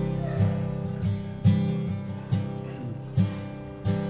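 Acoustic guitar playing strummed chords, a fresh chord struck about once a second and left ringing.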